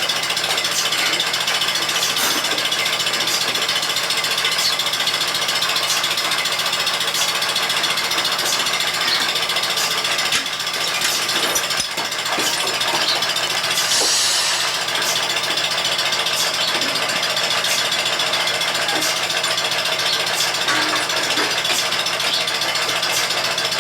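Bucket milking machine running: the steady hum of the vacuum pump with the pulsators clicking regularly.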